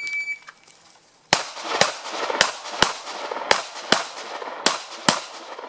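An electronic shot timer gives one short start beep. About a second later a pistol fires eight shots in four quick pairs, the two shots of each pair about half a second apart and the pairs about a second apart, each shot ringing briefly off the range berms.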